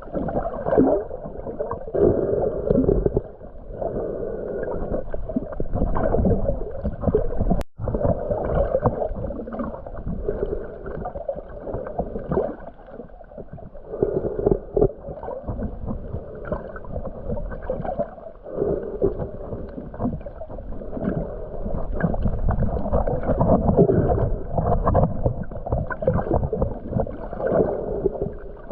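Muffled underwater sound of a snorkeler swimming: water sloshing and gurgling around the camera in uneven surges, with a brief cut-out about eight seconds in.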